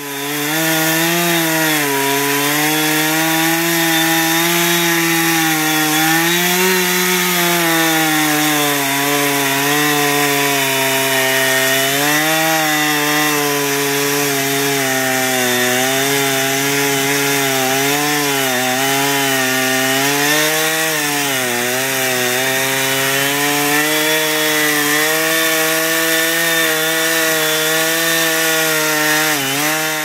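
Two-stroke chainsaw running at high revs while cutting wood, its pitch sagging and recovering as the chain loads and frees in the cut.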